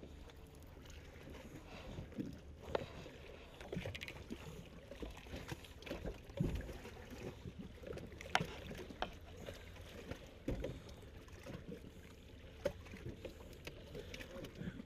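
Scattered light knocks and clicks from handling gear in an aluminum jon boat, the rod and tackle bumping the hull, with a couple of deeper thumps partway through.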